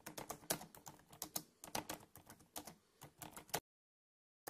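Computer keyboard being typed on: quick, irregular key clicks that stop about three and a half seconds in, followed by one more single click at the very end.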